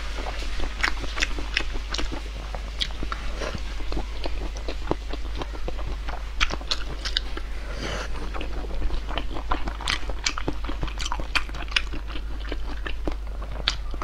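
Close-miked chewing and biting of spicy braised chicken heads: frequent sharp wet clicks and crunches with no pause in the eating. A steady low electrical hum runs underneath.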